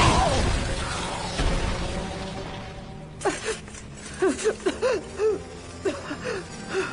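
Cartoon explosion sound effect: a loud blast that fades away over about two seconds. It is followed by a young woman's short, strained groans and gasps of pain, coming irregularly, over dramatic background music.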